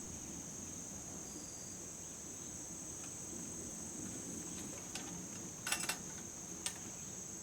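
Crickets chirring steadily in a high, even drone, with a few light clicks about five to six seconds in and one near the end.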